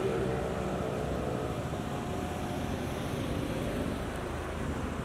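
Steady city street noise from traffic: vehicle engines and tyres running on the road.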